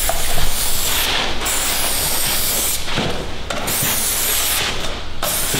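Aerosol can of spray adhesive hissing in about four long bursts with short breaks between them, as the adhesive is sprayed on as a primer before gripper is bonded to the floor.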